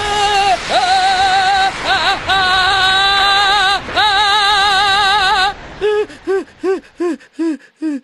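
A voice singing long held notes with a steady vibrato. From about six seconds in it changes to a run of short rising-and-falling vocal sounds, about three a second.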